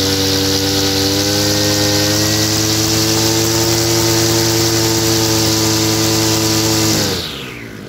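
Echo 315 31cc two-stroke, air-cooled brush cutter engine held at high revs with the throttle open, steady with a slight rise in pitch, just after its carburettor fuel screw has been adjusted. The revs drop sharply near the end.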